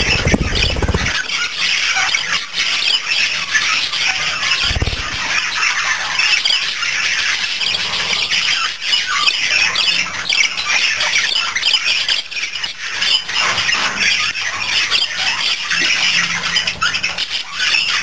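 Budgerigars chattering: a continuous stream of fast chirps and warbles. A short low flutter in the first second fits the blue budgie flapping its wings.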